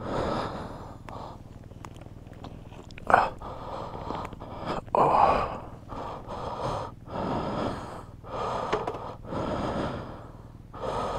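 A person breathing close to a helmet-mounted camera's microphone: a run of breaths every second or two, with a sharp knock about three seconds in and a faint steady low hum underneath.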